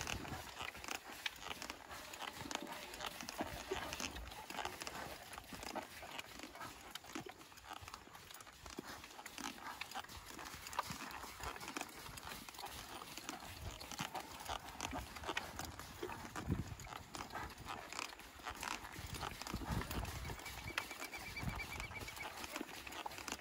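Horse's hooves moving over the ground: a run of light, irregular thuds and clicks.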